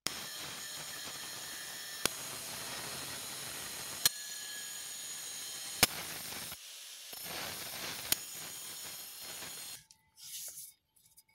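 Angle grinder running steadily as it grinds down the edge of a round disc, a hissing noise with a high whine, broken by a few sharp clicks. It stops near the end, followed by faint handling sounds.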